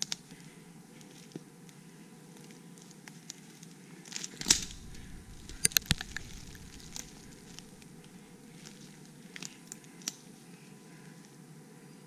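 A person scrambling over rock and dry leaf litter: scattered crackles, scrapes and knocks. The loudest knock comes about four and a half seconds in, with a quick cluster of clicks about a second later, all over a steady low hum.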